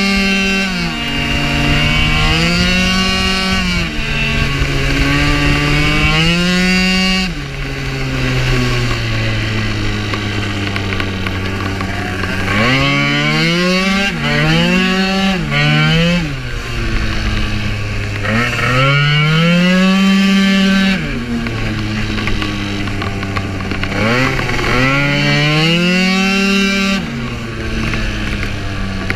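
Two-stroke engine of a 95cc-kitted Piaggio Zip racing scooter under hard riding: the revs climb quickly and hold high for a second or two, then drop off as the throttle is closed, over and over, with a longer lower, steadier stretch in the middle and a quick run of short revs later on. Wind rushes over the microphone throughout.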